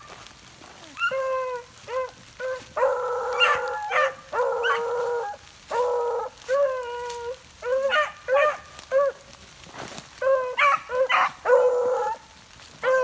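Beagles baying while running a rabbit: a string of short chops and longer drawn-out bawls at a steady pitch, with a brief lull before they pick up again near the end.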